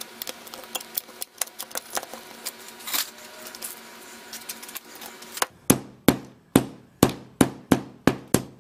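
Tin snips cutting sheet-metal step flashing with small irregular clicks, then a hammer striking at the flashing corner about nine times in a steady rhythm, a little over two blows a second, starting about five seconds in; the hammer blows are the loudest sounds.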